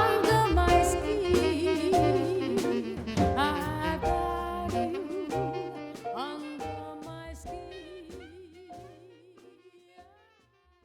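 Instrumental passage of a jazz song, a full band with a wavering lead line, fading out over the last few seconds.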